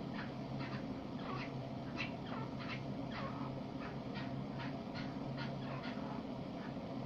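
Francolin giving short, high-pitched chirping calls, about three a second, some sliding down in pitch, over a steady low hum.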